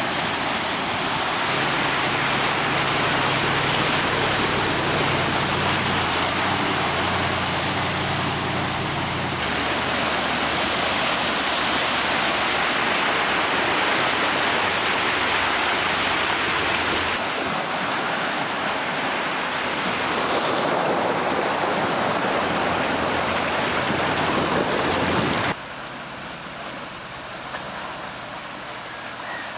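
Water rushing and splashing as a Range Rover Sport wades through a flooded stream, with a low engine hum under it. The sound becomes quieter about 25 seconds in.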